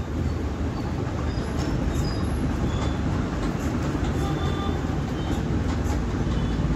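Steady low mechanical rumble with a few faint, short high-pitched tones scattered through it.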